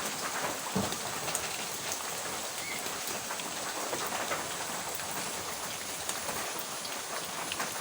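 Steady rain falling: a dense, even hiss of drops with many separate drop hits on a surface, one heavier hit about a second in.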